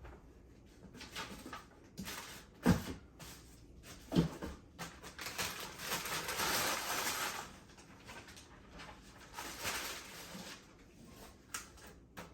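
Two sharp knocks, then a few seconds of rustling and crinkling as boxes and packaging are handled.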